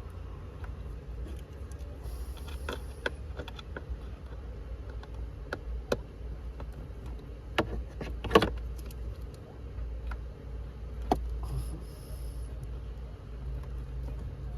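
Scattered clicks and knocks of plastic and metal as the blower motor of a 2008 Mazda CX-9 is worked loose from its housing under the dash, its three screws already out. One sharp knock about eight seconds in is louder than the rest, over a steady low hum.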